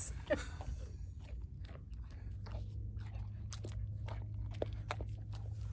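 A basset hound crunching and chewing a hard baked pumpkin and peanut butter dog biscuit: a run of sharp, irregular crunches.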